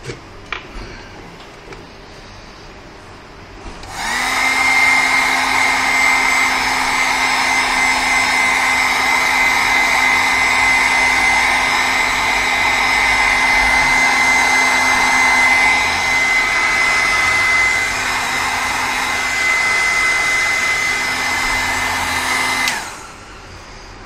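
Electric heat gun switched on about four seconds in, running steadily with a rushing fan noise and a high steady whine, then switched off shortly before the end. It is shrinking heat-shrink tubing over a newly soldered laptop charger connector.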